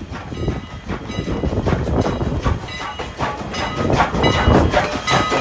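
A train rolling past, its wheels knocking and clattering over the rails over a low rumble, with short high squealing tones toward the end.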